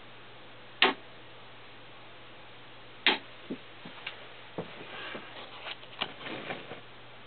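Two loud, sharp clicks about two seconds apart, followed by a run of softer clicks and knocks, over a faint steady low hum.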